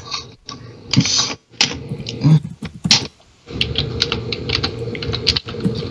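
Typing on a computer keyboard: irregular key clicks, with a short pause about three seconds in and a denser run of keystrokes after it.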